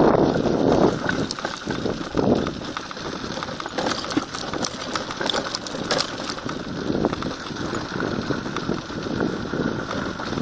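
A harnessed dog team running on a dirt track: many quick paw footfalls mixed with the crunch and rattle of the rig they pull over the gravelly ground. Louder for the first second or so, then steadier and softer.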